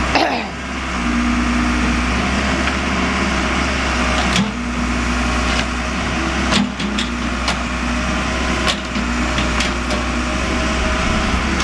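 Backhoe engine running steadily, with several sharp knocks from about four seconds in.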